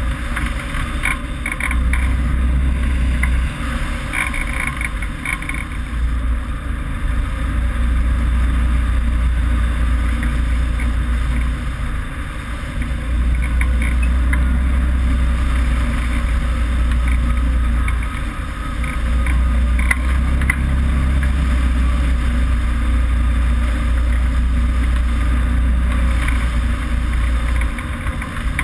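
Wind rushing over a wing-mounted action camera in hang glider flight: a heavy, low buffeting rumble that swells and eases in long gusts, with faint scattered ticks over it.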